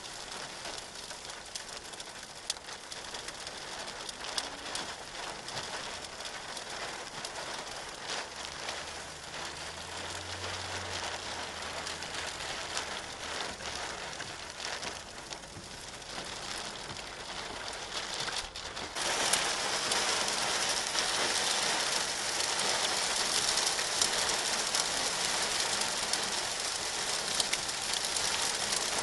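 Wind-driven sand pelting the windshield and body of a car in a sandstorm, heard from inside the cabin as a steady rain-like hiss. About two-thirds of the way through it suddenly gets louder and harsher.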